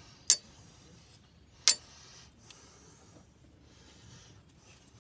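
Two sharp clicks about a second and a half apart, then a few faint ticks, as hands work the wiring harness and connectors in the engine bay.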